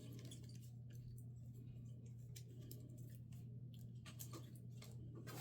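Faint, scattered light clicks and rustles of trading cards and plastic card sleeves being handled and sorted, a little busier near the end, over a steady low hum.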